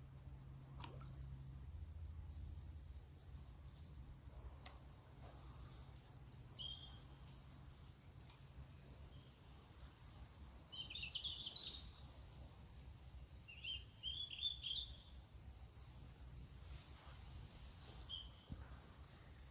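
Birds chirping and singing in short high phrases, loudest near the middle and again near the end, over a faint steady low rumble. A couple of sharp clicks come in the first few seconds.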